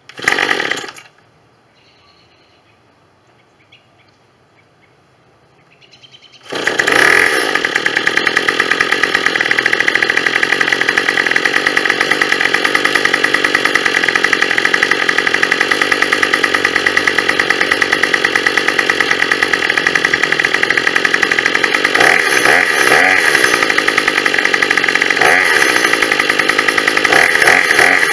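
Two-stroke grass trimmer engine being cold-started by pull cord: one short pull that does not catch, then about six seconds in it fires and keeps running steadily, a little boggy, with the throttle blipped a few times near the end.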